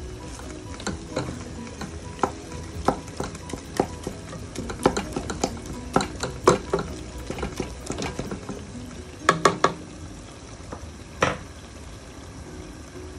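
Wooden spoon stirring minced mutton and onions in a metal pot, knocking against the pot in a string of irregular taps over a steady sizzle of the mince frying. The taps bunch into a quick cluster past the middle, and a last one comes about eleven seconds in, after which only the sizzle goes on.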